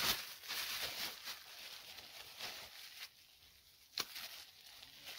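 Faint rustling and handling noise with a few scattered clicks, the sharpest about four seconds in.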